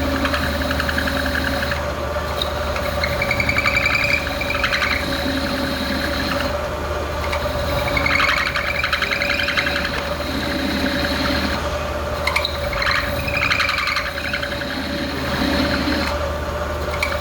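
Lathe running with a steady motor hum, while a higher grating noise comes and goes in stretches of a second or two as the tool works the metal.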